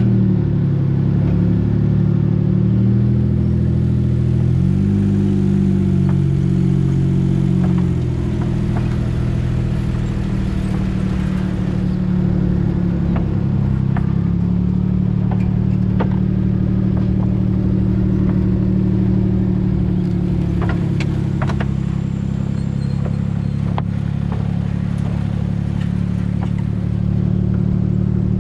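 Dune buggy engine running at low speed, its pitch shifting over the first several seconds and then holding steady. Scattered clacks and knocks from the wheels rolling over the loose wooden planks of a suspension bridge.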